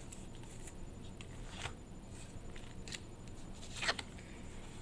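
Light handling of trading cards and packs: a few soft slides and taps, the loudest about four seconds in, over a low room background.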